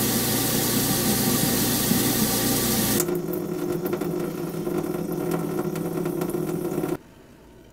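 Kitchen garbage disposal running with the tap on: a steady motor hum under loud rushing water. It cuts off about three seconds in and gives way to water dripping, faint drips over a steady hum, which stops suddenly near the end.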